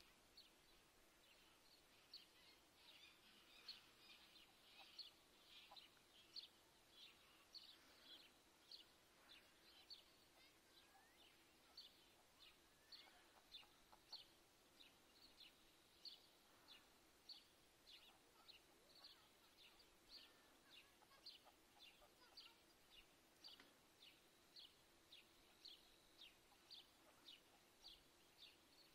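Greylag goose goslings peeping faintly: a steady series of short, high peeps, about two a second, slightly denser in the first few seconds.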